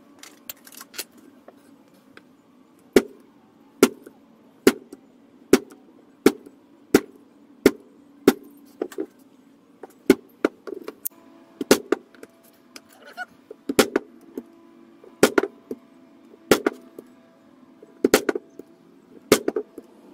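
Mallet striking a stitching chisel to punch stitch holes through leather: sharp knocks about once a second, a few in quick pairs near the end.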